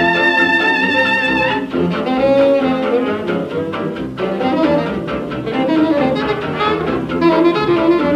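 Early-1930s swing band playing an instrumental passage from a 78 rpm record. A long held trumpet note ends about a second and a half in, then the band's horns play on together.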